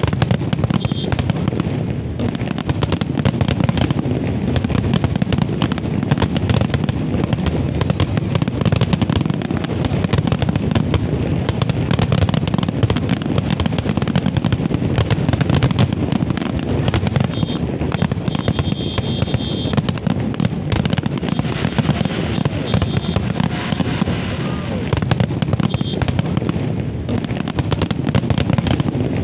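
Large fireworks display: a dense, unbroken barrage of shell bursts and crackle with no pause.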